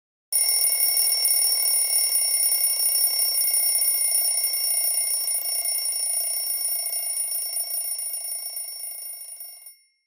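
Electric doorbell ringing without a break for about nine seconds, a fast metallic clatter under a steady high ring. It starts suddenly, fades a little and stops near the end.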